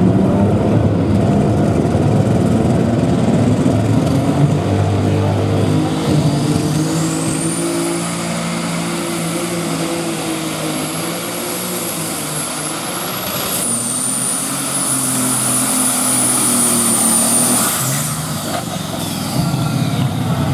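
Light super stock pulling tractor's turbocharged diesel engine running flat out under load while pulling the sled. A high turbocharger whine climbs from about six seconds in, holds, steps down slightly around fourteen seconds and cuts off near eighteen seconds.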